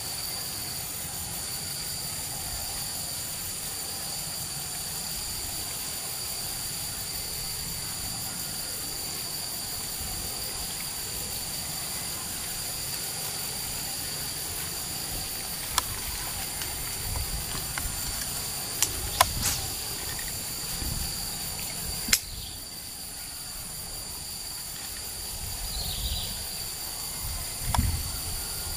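Steady, high-pitched chorus of insects droning without a break, with a handful of sharp clicks in the second half.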